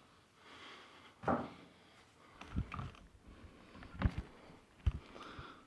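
Several irregular thumps and knocks with light rustling, the loudest about a second in.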